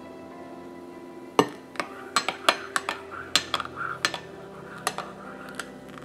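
A metal spoon clinking against a ceramic coffee cup, about a dozen sharp clinks starting about a second and a half in, as a latte is poured and mixed in the cup.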